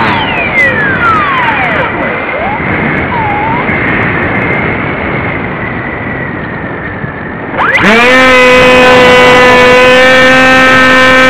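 Onboard sound of a Beta 1400 RC model plane. Its motor and propeller wind down at the start, leaving rushing wind noise while it glides unpowered. About three-quarters of the way through, the motor spins up quickly to a steady, louder drone as the plane climbs.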